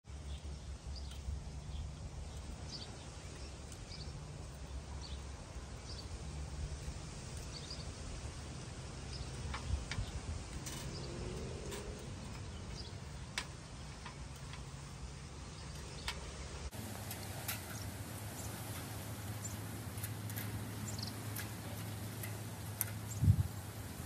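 Quiet outdoor ambience with a steady low rumble, faint bird chirps and scattered light metallic clicks from a wire cage trap being handled.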